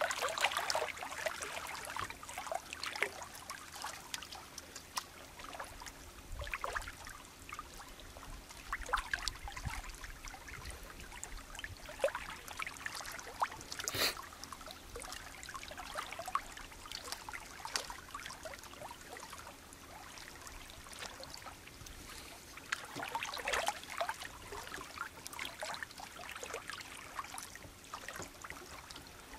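Small waves lapping at the water's edge, with irregular trickling splashes, and a single sharp click about halfway through.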